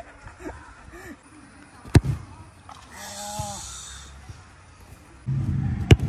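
A football struck hard by a boot, one sharp smack near the end. An earlier single sharp knock comes about two seconds in. A low steady hum comes in shortly before the kick.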